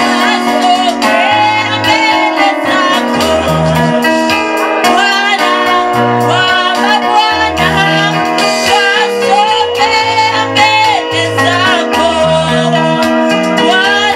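Gospel worship music: a female voice singing a melody over sustained keyboard chords and a bass line.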